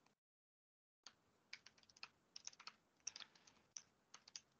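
Faint computer keyboard typing: an irregular run of key clicks starting about a second in.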